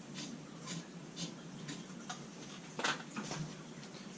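Faint, irregular light clicks and ticks, roughly two a second, with one sharper click near three seconds in: small parts being handled while the newly wired USB charger outlet is checked.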